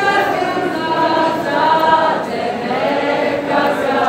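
Large crowd of people singing a song together, unaccompanied, many voices holding long notes in loose unison.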